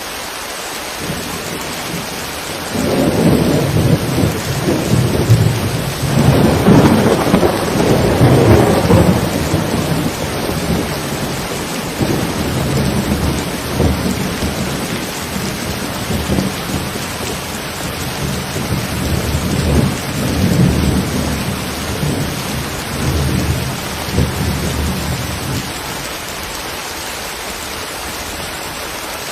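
Steady rain falling, with a long roll of thunder that rumbles in about two and a half seconds in, is loudest several seconds later and dies away near the end.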